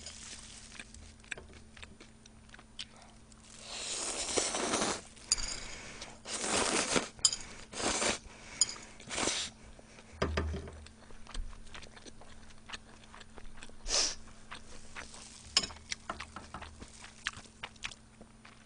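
Close-miked eating: chewing and wet mouth sounds of braised chicken with glass noodles, with several short, louder rushes of noise, the longest about four to five seconds in, and a dull low thump about ten seconds in.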